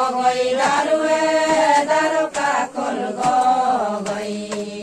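A group of voices chanting a ponung dance song together in long held notes. A few sharp clicks sound over the singing.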